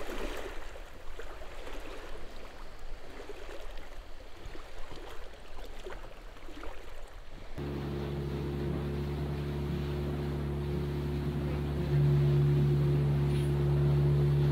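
Uneven rush of wind and water noise, then, about halfway through, a boat's Yamaha outboard motor running steadily under way. The motor gets louder about three seconds after it comes in.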